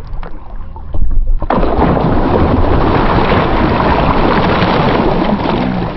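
A gaffed bonito thrashing at the side of the boat, splashing water hard against the hull. A few knocks in the first second or so, then loud, steady splashing from about a second and a half in.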